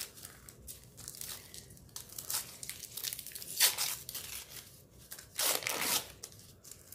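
Gift wrapping paper being torn open and crumpled by hand in a series of short rips and crinkles. The loudest rips come about three and a half seconds in and again around five and a half to six seconds in.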